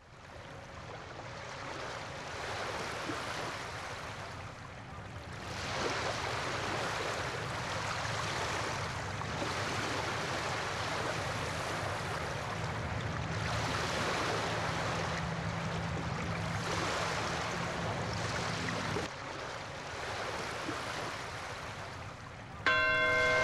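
Rushing water that swells and ebbs every few seconds, with a low steady hum underneath that stops about 19 seconds in. A music track comes in just before the end.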